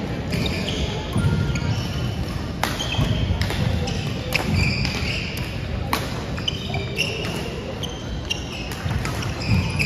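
Badminton rally on a wooden gym floor: several sharp racket strikes on the shuttlecock about a second apart, with sneakers squeaking and feet thudding as the players lunge.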